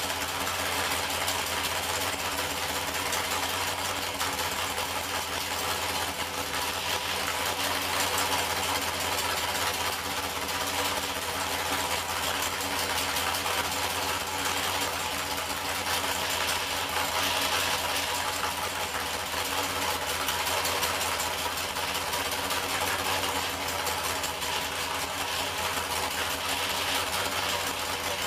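A 496 cubic-inch big-block Chevrolet V8 with a solid roller cam, running steadily at idle on an engine dyno, with no revs.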